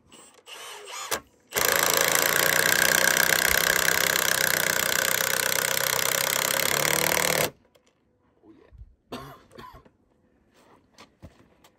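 Cordless power driver running a long 6- to 8-inch screw into a wooden jack-fence pole. It starts about a second and a half in, runs steadily for about six seconds, and cuts off suddenly.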